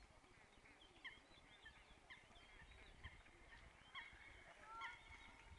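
Faint bird calls: short high chirps about once a second, with a couple of brief whistles near the end, over a low rumble.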